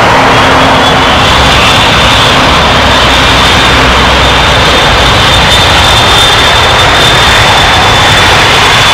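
Three-engined Dassault Falcon business jet's turbofans running as it rolls along the runway: a loud, steady jet rush with a thin high whine held throughout and a low rumble that swells in the middle.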